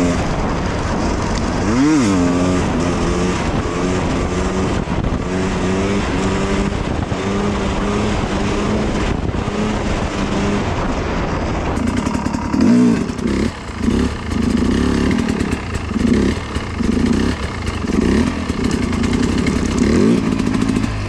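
Dirt bike engine picked up by a helmet-mounted camera while riding off-road: it revs up and down twice in the first couple of seconds, then runs more steadily under load. About twelve seconds in the sound changes abruptly to a run of swelling rises and falls, roughly one a second.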